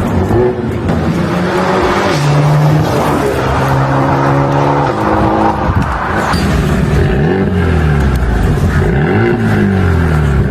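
Mercedes-AMG CLA35's turbocharged 2.0-litre four-cylinder running through an RES valved aftermarket exhaust. It holds the revs at a few steady levels, then revs up and down in several sweeps in the second half.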